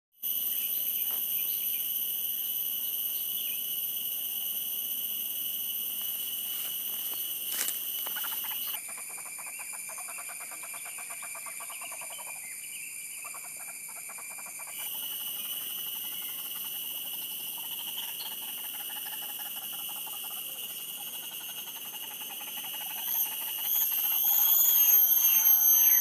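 Steady insect chorus: several constant high-pitched whining tones held without a break, their pattern changing abruptly about nine and fifteen seconds in. A few wavering high calls come in near the end.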